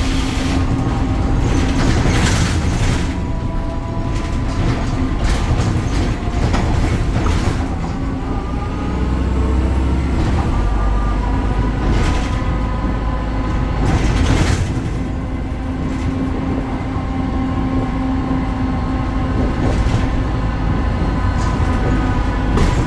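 BredaMenarini Avancity Plus city bus running, its Deutz diesel engine and ZF automatic gearbox giving a steady low hum under an odd whine that slides down in pitch, then climbs and holds as the bus pulls away again. Short rattles and knocks come through now and then.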